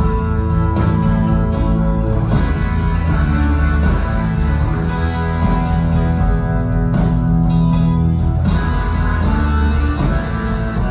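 A live blues-rock band playing an instrumental stretch with no singing: electric guitars over bass and drums, with a sharp accent about every second and a half, heard in an audience recording.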